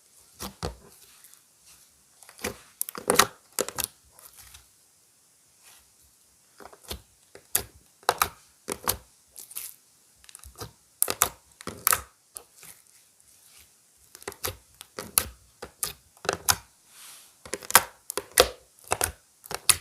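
Clear slime mixed with lipstick being squeezed, stretched and folded by hand, giving irregular clusters of sharp wet pops and crackles, with short pauses between handfuls.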